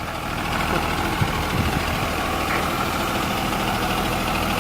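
Engine of a 2001 Blue Bird transit bus running steadily, growing a little louder over the first second and then holding an even level.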